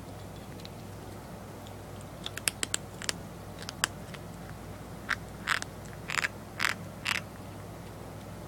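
Six-week-old Persian kitten eating: a scatter of sharp clicks and smacks from about two seconds in, then five short crunching, chewing bursts near the end.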